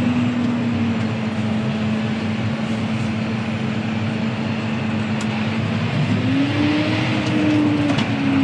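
John Deere 6R tractor's engine running steadily, heard from inside the cab, its note rising a little about six seconds in as the tractor pulls up.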